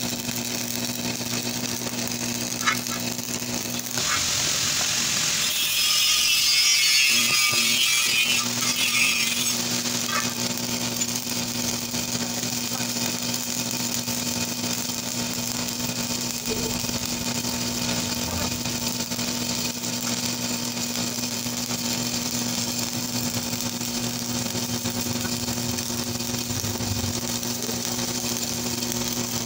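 Stick (shielded metal arc) welding: the electrode's arc crackles and sizzles steadily, with a steady hum beneath. The crackle grows louder and denser from about four seconds in and eases back after about ten seconds.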